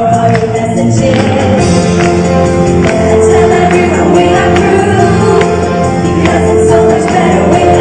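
Live pop band music with a female singer and percussion, played loud through the venue's sound system.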